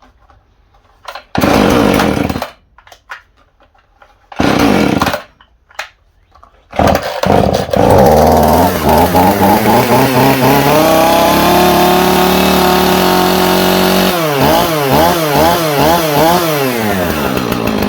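Two-stroke chainsaw being pull-started: two short loud pulls, then it catches on the third and runs, revving up and settling to a steady fast run, then revved up and down repeatedly near the end. It now starts and runs with a newly replaced ignition coil that cured a no-spark fault.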